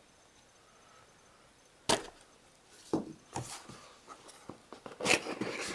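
A cardboard product box being handled and opened: a sharp click about two seconds in, then a few knocks and scraping rustles that get busier near the end.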